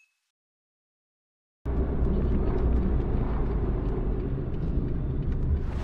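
Silence, then about a second and a half in, the steady low road and engine rumble of a Daihatsu Hijet Cargo kei van under way, picked up by an action camera mounted inside the van.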